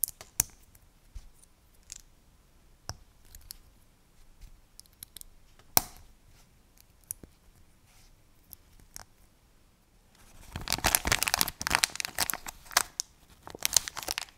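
Plastic LEGO pieces clicking and snapping together as a small sub-assembly is built: scattered sharp clicks, the sharpest about six seconds in. About ten seconds in, a sticker sheet crinkles and crackles for several seconds as a sticker is peeled off it.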